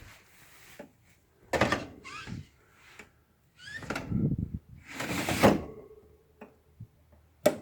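An LG 12,000 BTU window air conditioner's chassis being pushed into its cabinet: several scraping, sliding shoves with short squeaks, then a sharp knock near the end as it seats.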